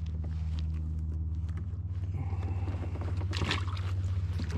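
Small motor running with a steady low hum and a fast even flutter, with a brief burst of clicking about three and a half seconds in.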